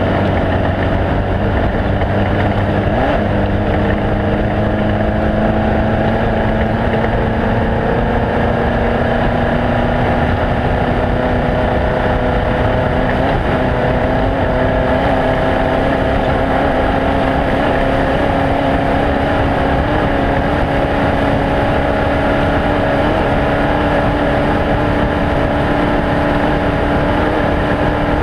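Off-road race vehicle's engine running hard and steadily, its pitch creeping slowly upward, over a constant rush of wind and driving noise.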